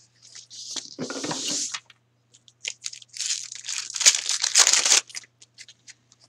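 A foil trading-card pack being torn open and its wrapper crinkling, in two spells of rough tearing and crinkling, about a second in and again from about three to five seconds in.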